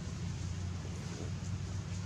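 Steady outdoor background noise: a continuous low rumble with a fainter hiss over it, with no distinct event standing out.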